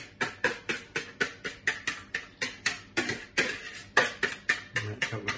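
A knife blade scraping melted chocolate mixture out of a plastic mixing bowl in quick repeated strokes, about five a second, each stroke a short sharp scrape.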